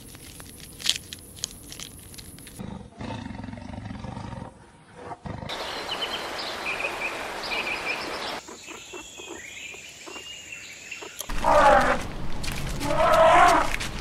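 Wild animal calls in a run of short clips: faint ticks, then a hiss with short high chirps, then two loud pitched calls near the end, the loudest sounds here.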